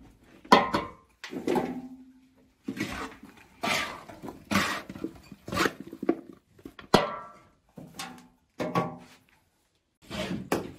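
A bowl scooping and scraping through moist livestock feed in a metal basin, about once a second. Some strokes knock against the basin and set it ringing briefly.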